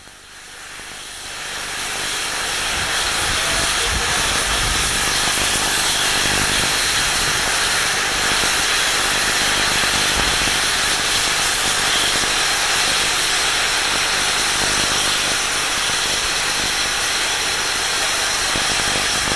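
Steam tank locomotive no. 5374 letting off steam: a steady hiss that builds up over about the first two seconds and then holds.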